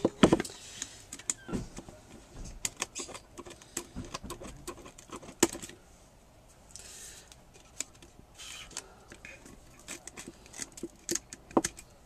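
Scissors snipping small pieces off ribbon and lace, with scattered light clicks and knocks of craft materials being handled on a tabletop and a couple of short swishes about seven and eight and a half seconds in.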